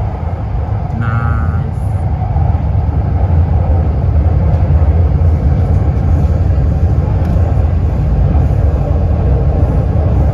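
Metro train running on its line, a loud, steady low rumble of wheels and motors that swells over the first few seconds as the train gathers speed, then holds.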